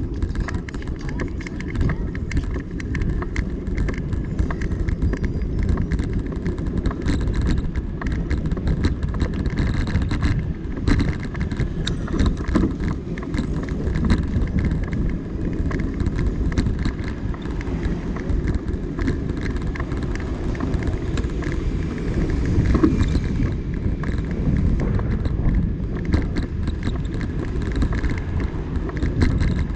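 Steady wind rush on the microphone and tyre rumble from a rider rolling along an asphalt bike lane, with small rattles and knocks throughout.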